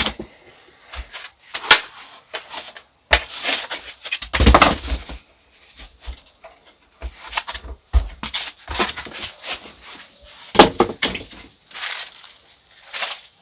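Cardboard box and packaging being handled as a small PC is pulled out of it: irregular rustling and scraping with several sharp knocks and clicks.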